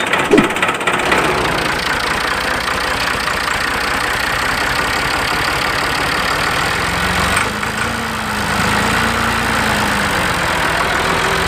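Miniature model tractor's small drive motor running steadily as it tows a loaded trailer, with a brief change about seven and a half seconds in.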